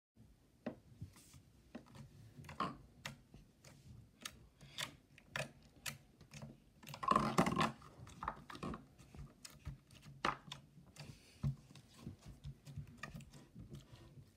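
Green slime being pressed, poked and peeled off a wooden surface by hand, making irregular sticky clicks and small pops, with a louder crackling stretch about seven seconds in.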